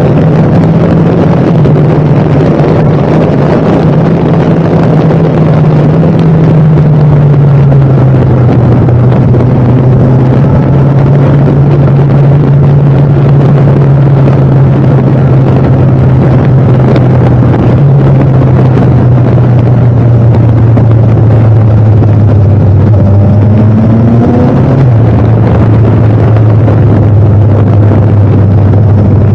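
A vehicle engine running steadily while under way, loud, over a rushing noise. Its note steps down about a quarter of the way in and again twice later on.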